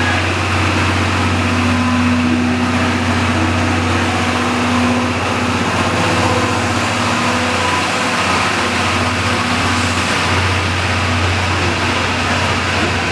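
A JR West DD51 diesel-hydraulic locomotive's engines drone steadily as it hauls the train out of the station, with a low hum under a broad noise and a higher tone that fades about halfway through.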